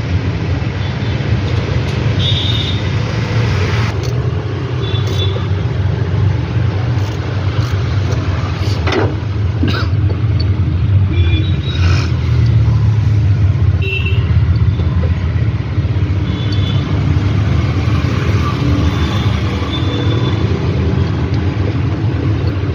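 Bajaj Maxima auto rickshaw engine running steadily at idle.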